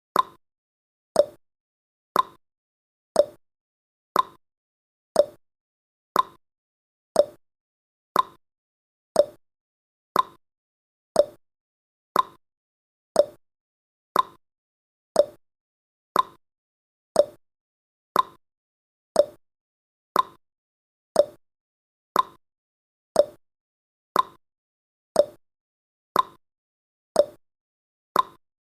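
Countdown timer ticking sound effect: one short, sharp tick each second, evenly spaced.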